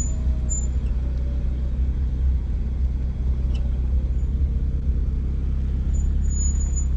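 BMW M240i driving, with a steady low road and drivetrain rumble. A few brief, faint high-pitched squeaks come near the start and again near the end: the rear squeak that the owner suspects comes from the shocks, which have sat for a long time.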